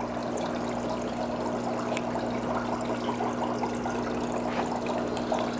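Reef aquarium's circulating water trickling and bubbling, over a steady low hum.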